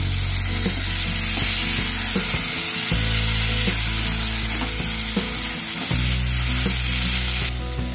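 Potato and pointed gourd pieces in masala sizzling as they fry in a pan, with a spatula stirring them and scraping the pan now and then. The sizzle stops abruptly near the end.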